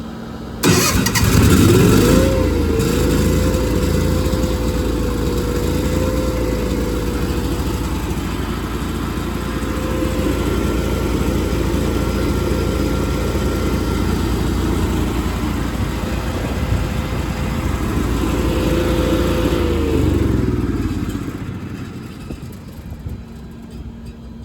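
Engine of an older engine-driven welder starting: it catches about a second in and comes up to speed, runs steadily, then is shut off about twenty seconds in and winds down. The choke on it is kind of sticking.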